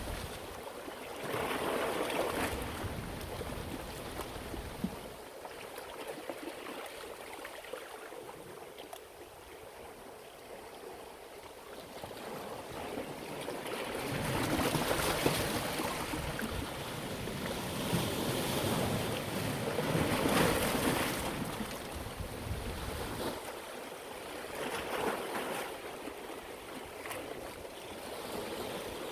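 Sea waves washing onto the shore, the surf swelling and ebbing in repeated surges every few seconds.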